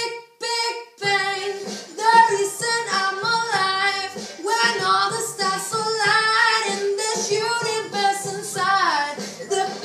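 A young girl singing a pop song solo, with long sung notes that bend in pitch and a short pause for breath just after the start.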